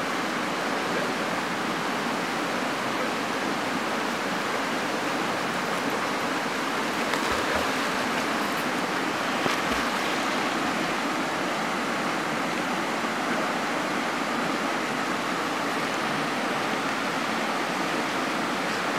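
Shallow river water rushing steadily over a rocky bed, with a few brief splashes from a swimming dog about halfway through.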